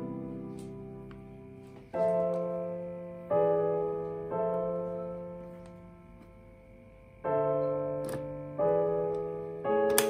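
Soft background piano music: slow chords, each struck and left to fade before the next.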